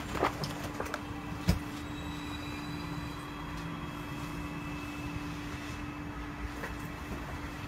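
Steady background noise with an unbroken low hum, and two short knocks, about a quarter second and a second and a half in.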